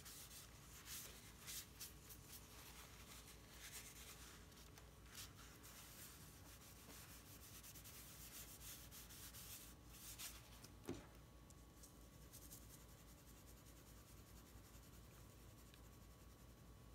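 A folded tissue rubbing over graphite on drawing paper to blend the shading: faint, soft brushing strokes. After about eleven seconds the strokes stop with a short soft knock, and faint pencil strokes on the paper follow near the end.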